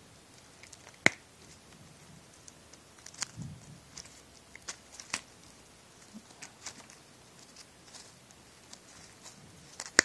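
Wire cutters snipping through harness wires: a string of sharp snips, the loudest about a second in, as the injector and coil wires of a GM LS engine wiring harness are cut.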